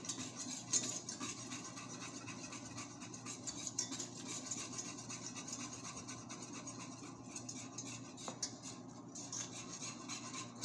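A utensil stirring and scraping butter and flour around a pan as a roux is cooked, with a few light ticks against the pan over a steady low background hum.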